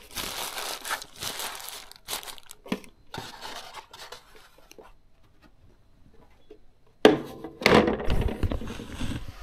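Plastic packaging wrap crinkling and rustling as it is handled, in patches over the first few seconds, then a quieter stretch. About seven seconds in comes a sudden loud knock, followed by louder handling noise with low bumps.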